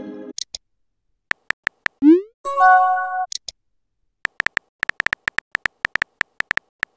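Chat-app sound effects: a few sharp keyboard typing clicks, then a rising pop and a short chime as a new message appears about two seconds in. A faster run of typing clicks fills the second half.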